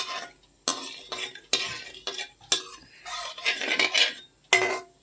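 Metal spatula scraping and clinking against a stainless steel kadai, about once a second, as whole spices are stirred in ghee and oil.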